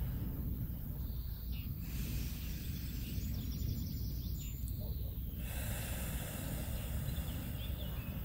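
Slow, deep breaths, drawn in through the nose and let out through the mouth as a breathy hiss, over a steady low rumble.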